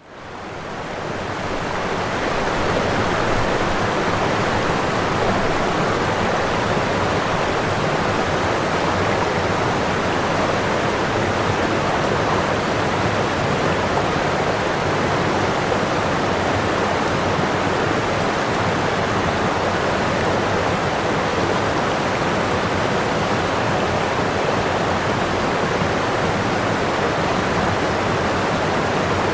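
Waterfall: a steady, dense rush of falling water that fades in over the first couple of seconds and then holds even.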